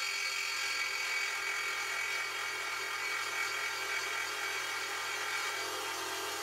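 Cordless DeWalt jigsaw cutting through 6061 aluminium plate, the motor and reciprocating blade running steadily with a high-pitched whine.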